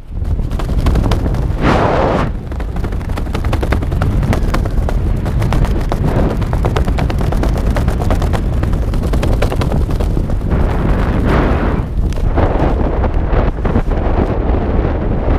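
Wind buffeting a skydiver's helmet-camera microphone under an open parachute: a loud, rumbling rush full of rapid crackling pops, swelling now and then.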